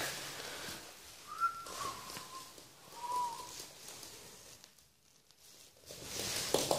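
Yorkshire terrier puppy scuffling against a hand on a wooden floor, with rustling and pattering loudest near the end. A few short, thin, whistle-like tones sound around the middle.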